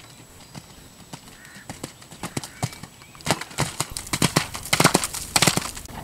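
Horse's hooves cantering on a wet sand arena after a jump. The thuds come in quick clusters and grow much louder as the horse passes close, loudest about five seconds in.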